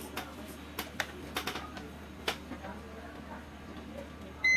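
Light clicks and taps of small tools handled at an electronics repair bench, then near the end a half-second electronic beep, one steady high tone, from the bench test equipment.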